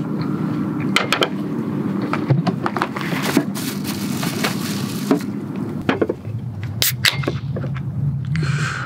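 Scattered knocks and clacks of things being handled on a wooden camp table and in a cooler, with a short hiss near the end.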